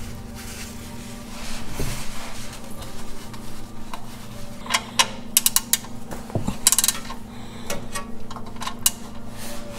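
Socket ratchet clicking in quick runs, starting about halfway through, as the oil drain plug is tightened back into a Nissan Xterra's oil pan, over a steady low hum.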